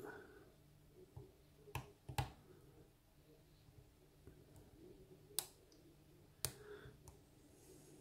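Faint clicks of a lock pick working the pins of a lock cylinder under tension from a tension wrench, with about four sharper clicks, two close together around two seconds in and two more later. The lock is holding in a false set as the pins are probed.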